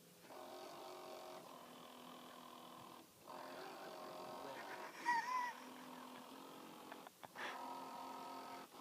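Small electric motor of a toy remote-control boat whining steadily, cutting out briefly twice as the throttle is let off and reapplied. About five seconds in, a short, loud warbling chirp sounds over it.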